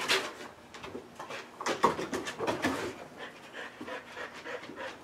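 A dog panting in quick, rough breaths, busiest about two seconds in.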